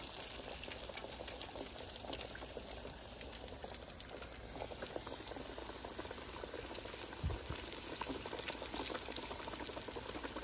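Breaded chicken frying in the hot oil of a two-basket electric deep fryer: a steady bubbling sizzle full of small crackles. A brief low thump comes about seven seconds in.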